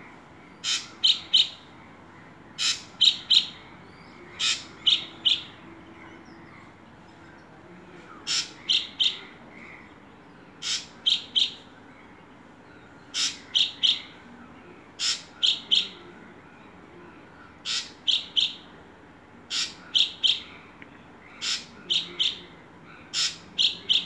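A bird calling over and over, each call a quick run of three sharp notes, repeated about every two seconds.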